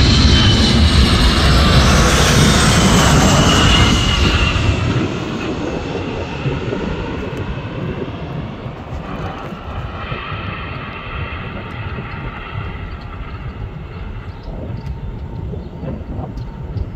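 Four-engine jet aircraft on a low landing approach. It passes loudly overhead with a high engine whine, drops off sharply about four to five seconds in, then fades to a quieter, steady jet sound as it moves away toward the runway.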